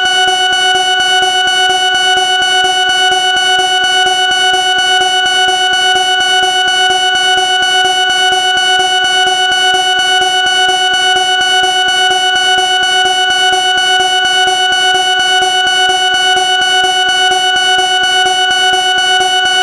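Smoke alarm going off: a loud, unbroken electronic alarm tone with a fast buzzing flutter, held steady with no pauses.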